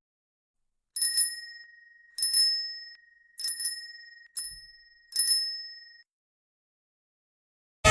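Bicycle bell rung five times, about a second apart, each ring a quick double strike that fades away.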